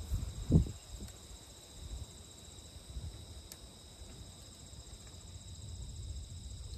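Steady high chirring of an insect chorus over a low rumble. One short, loud sound about half a second in.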